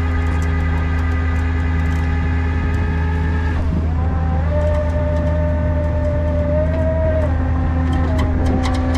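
Duramax diesel wrecker engine running steadily while its winch drags a car out of a ditch, with a whine over the engine drone that changes pitch about three and a half seconds in and again near the end.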